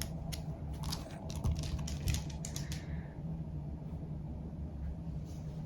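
A scattering of light, sharp clicks and taps in the first three seconds, over a steady low hum.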